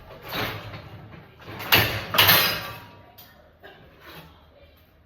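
Dishwasher being loaded: the rack slides on its rollers and dishes knock against it, twice, the second time louder.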